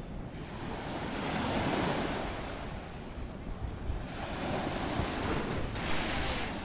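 Sea waves breaking and washing in, two swells of surf a few seconds apart, the second ending in a brief bright hiss, with wind buffeting the microphone.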